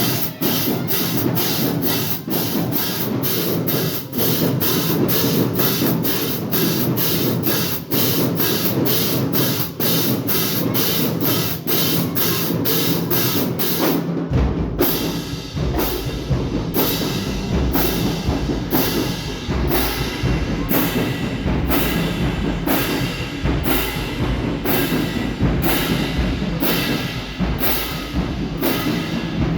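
Marching band drumline playing a cadence: a steady beat of sharp clicking strokes, with the bass drums joining in about halfway through.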